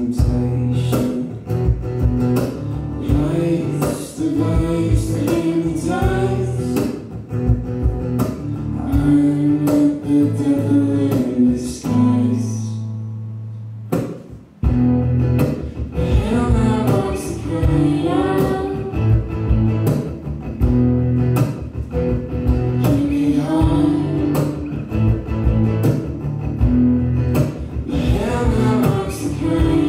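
Live acoustic music: a steel-string acoustic guitar with a voice or melody line over it. About twelve seconds in, a held note fades and the music nearly stops for about two seconds before starting up again.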